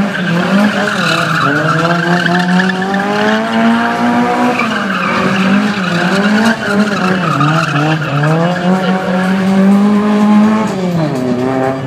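Lada 2107 drift car's engine held high in the revs, its pitch rising and falling again and again as the throttle is worked, with tyres skidding on the tarmac throughout. The revs dip about five seconds in and drop off near the end.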